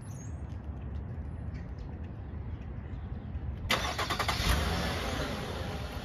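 Nissan Quest's 3.5-litre V6 being remote-started: a little under four seconds in the starter cranks suddenly, the engine catches, and it runs at idle.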